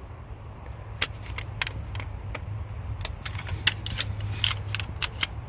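Irregular light metallic clicks and clinks of a steel timing chain and its plastic-faced chain guide being handled and seated by hand on a Ford 5.4L 3V engine, over a steady low hum.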